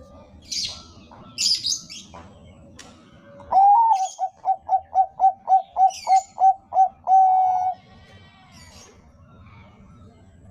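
Zebra dove (bangkok perkutut) singing: a quick run of about a dozen short, evenly spaced coos, roughly three a second, ending on one longer held coo. Brief high-pitched chirps come before the coos and once in the middle of them.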